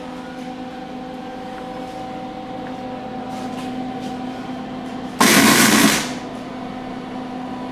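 Steady hum, then about five seconds in a burst of under a second of wire-feed (MIG) welding on the sheet steel of a car's inner fender: a short weld or tack, the loudest sound.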